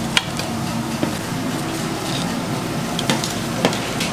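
Cut crab pieces being tossed by hand in thick chili seasoning in a metal basin: shells knock together in a few sharp clicks over a steady background hum.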